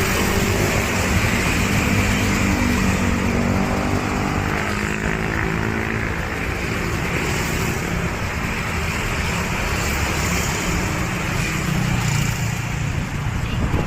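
Motorcycle engine running while riding on the road, its pitch shifting gently up and down over steady road noise.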